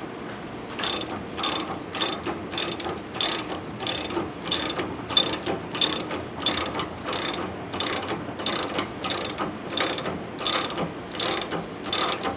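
Ratcheting wrench clicking in steady repeated strokes, about two clicks a second, as it turns a nut on threaded rod to draw a leaf spring bushing into the spring eye.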